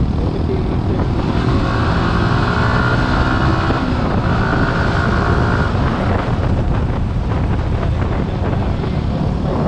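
Yamaha R15 V3's 155 cc liquid-cooled four-stroke single-cylinder engine pulling hard in third gear, its note climbing gently as the bike accelerates, with wind noise on the microphone. About six seconds in the engine note breaks off as the rider changes up into fourth.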